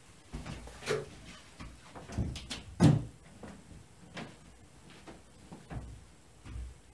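Scattered knocks and thumps of someone getting up from a table and moving off through a house, with a door moving; the loudest knock comes nearly three seconds in.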